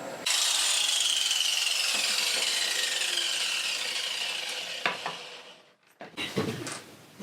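Angle grinder grinding down a steel valve shim held in a cup jig, a harsh rasping with a whine that falls in pitch and fades out over about five seconds. A few short knocks follow near the end.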